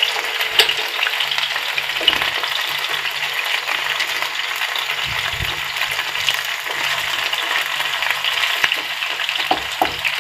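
Marinated chicken pieces shallow-frying in hot sunflower oil in a non-stick pan: a steady sizzle with fine crackling.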